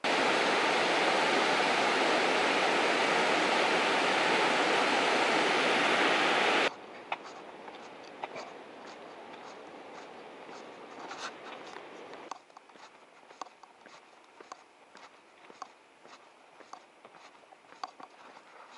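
Water pouring down a stepped sabo (erosion-control) check dam, a loud even rush that cuts off abruptly about seven seconds in. After that, a much quieter background with light, regular ticks of footsteps on an asphalt road; the background drops lower again about twelve seconds in.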